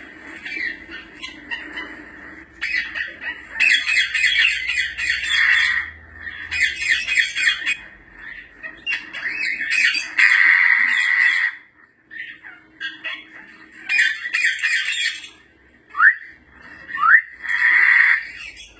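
African grey parrot calling: a run of harsh squawks and screeches, with two short rising whistles near the end.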